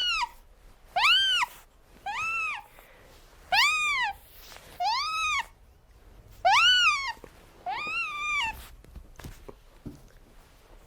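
A cat meowing over and over: about seven high-pitched meows, each rising then falling in pitch, roughly one a second, stopping about two-thirds of the way through.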